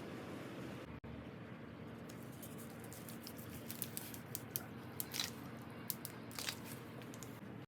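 Faint, scattered clicks and crunches from work on a pipe joint over a low steady hum, the clicks bunching in the second half.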